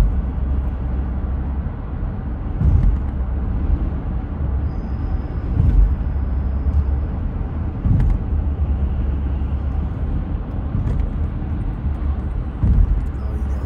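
Road and engine noise inside a car's cabin while driving at highway speed: a steady low rumble with a few short thumps.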